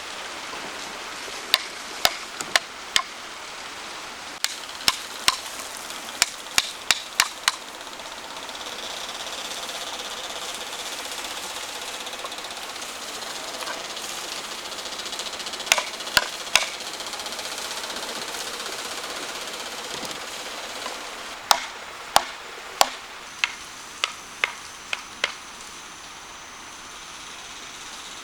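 Sharp blows of a hand tool on wood, struck in short runs of three to eight at about two a second with pauses between, over a steady hiss.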